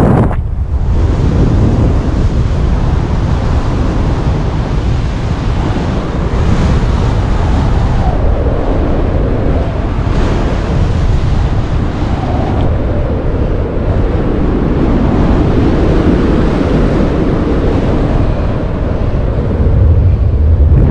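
Wind rushing over the microphone of a paraglider pilot's camera in flight: loud, continuous airflow noise, heaviest in the low rumble and rising and falling a little as the air gusts.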